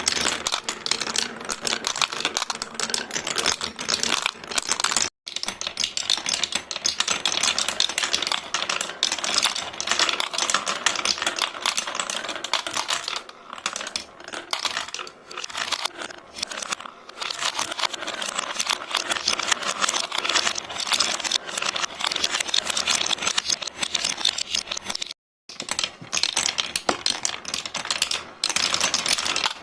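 Many marbles rolling and clattering through a marble run, a dense continuous stream of small clicks and clacks. It cuts out briefly twice, about 5 seconds and 25 seconds in.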